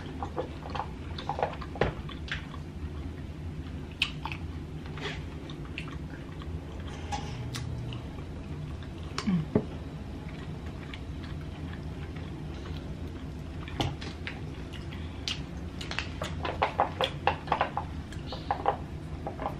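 Close-up chewing and wet mouth smacks of someone eating seafood dipped in sauce, with scattered sharp clicks that come thicker in a quick run near the end.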